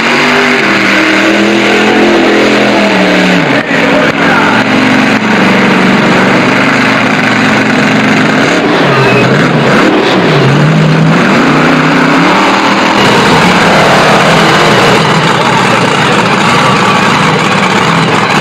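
Monster truck engine revving hard, its pitch climbing and falling several times as the throttle is worked, with sharp drops about three and a half seconds in and twice around ten seconds. From about thirteen seconds on it runs more steadily under a wash of noise.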